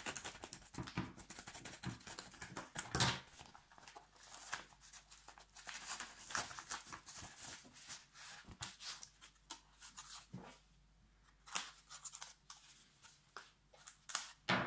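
Crinkling and rustling of a stiff plastic mailer being opened with scissors, with irregular snips and crackles, the loudest about three seconds in. Then a cardboard envelope scrapes as it is slid out and handled.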